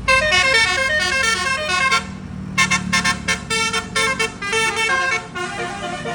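Basuri telolet horn on a bus, a multi-tone air horn, playing a quick melody of stepping notes, breaking off briefly about two seconds in, then sounding short choppy notes before the tune carries on more softly near the end.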